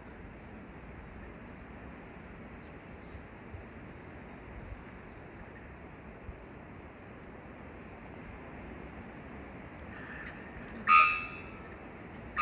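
Forest birds calling over a steady hiss of forest ambience: a thin, high note repeats about twice a second, and a louder call with several tones sounds near the end.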